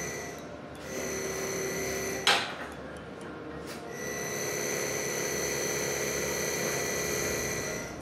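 Drill press spindle running with a steady whine in two spells, drilling into a crankshaft counterweight to take off weight for balancing. A single sharp metallic knock comes just after two seconds in, between the spells.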